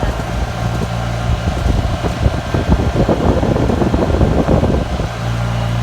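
Golf cart on the move, a rough, uneven rumbling and buffeting in place of its steady hum, loudest in the middle. The steady low hum comes back about five seconds in.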